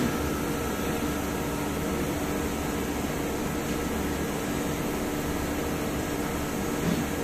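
CNC router spindle running steadily while a small end mill cuts an aluminium plate, a constant machine hum and hiss.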